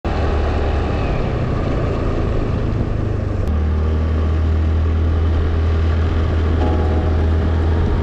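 Steady low drone of a motor vehicle driving, with an abrupt shift in tone about three and a half seconds in.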